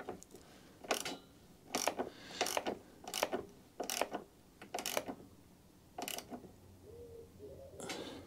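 A small 10 mm ratchet spanner clicking in about eight short strokes, roughly a second apart, as it tightens the bolt under a lawnmower carburettor's float bowl to stop a fuel leak.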